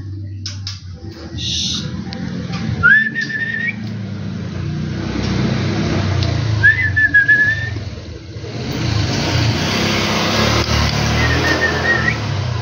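Three short rising whistled notes, a few seconds apart, over a steady low rumble and a hiss of traffic that swells near the end.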